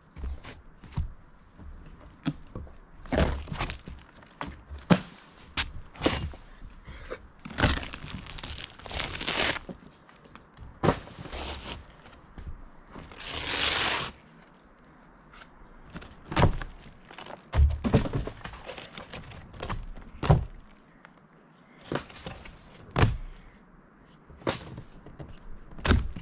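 Irregular thuds, knocks and cracking as rotten boards in a felt-covered flat roof are stamped on, broken up and pulled out, with footsteps on the roof. A longer scraping rush comes about halfway through.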